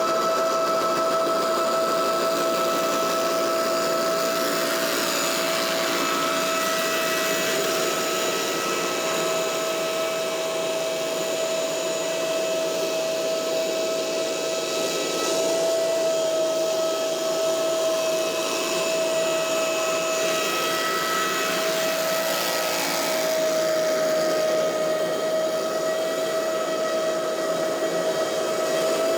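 Scag Windstorm stand-on leaf blower running steadily: a strong whine over a rush of air, its pitch wavering slightly.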